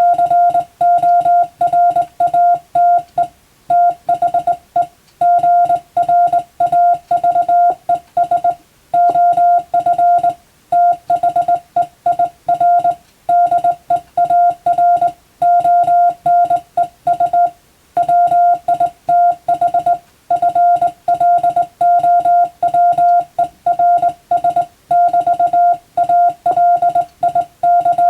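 Morse code sent by hand on a telegraph key: one steady beep tone keyed on and off in quick dots and dashes, with short pauses between words, at the pace of an English-text telegram practice message.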